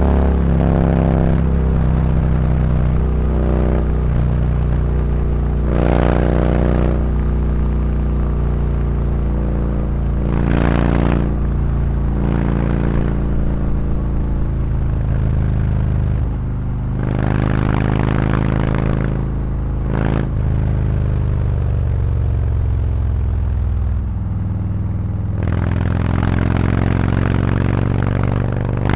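Harley-Davidson Road Glide's V-twin exhaust through SuperTrapp 4-inch internal-disc slip-on mufflers, riding through town. The throttle opens into louder surges several times, and the engine pitch rises and falls between gears and shifts.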